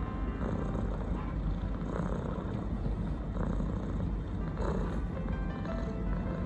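A Norwegian Forest Cat purring, a steady low rumble.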